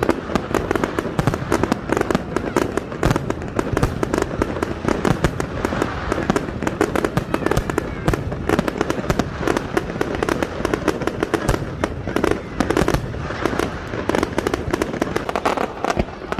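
Fireworks display: a dense, continuous barrage of bangs and crackling, many reports a second without a break.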